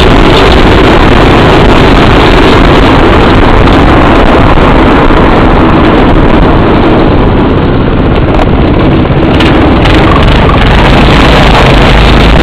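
Go-kart's small four-stroke engine running at speed, overlaid by heavy wind rumble on the microphone, easing briefly about two-thirds of the way through.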